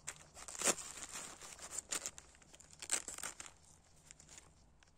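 Crinkling of a plastic-wrapped medical mask pushed into a backpack pocket, with rustling as a hand rummages in the pocket. It comes in irregular bursts and dies away after about three and a half seconds.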